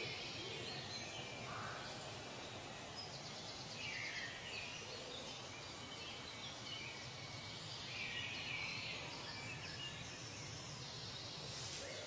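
Faint woodland ambience: a steady background hiss with a few short bird calls scattered through it.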